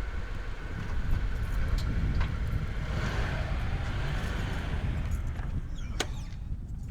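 Car engine running: a steady low rumble, with a sharp click about six seconds in.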